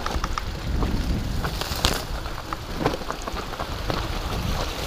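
Mountain bike riding down a rocky dirt trail: a steady rumble of wind and rolling tyres on the camera mic, with many quick clicks and rattles from tyres on loose stones and the bike, and a louder clatter about two seconds in.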